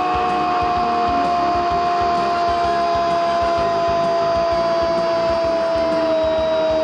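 A Brazilian TV football commentator's long held shout of 'Goooool', one sustained note sliding slowly down in pitch as it is drawn out.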